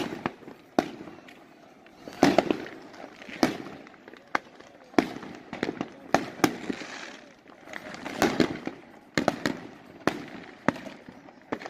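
Fireworks going off: an irregular string of sharp bangs and cracks, about one or two a second, each with a short echo.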